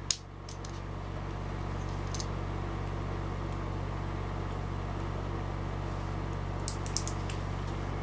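Small metallic clicks from a brass Corbin five-pin cabinet lock cylinder being handled, with its key and plug follower worked in the plug. One click comes just after the start, a faint one about two seconds in, and a quick run of several near the end, over a steady electrical hum.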